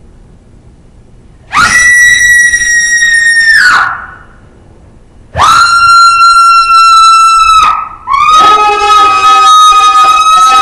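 Three long, very loud, high-pitched human screams, each held on one note for about two seconds and falling away at the end; the third has a second, lower voice under it.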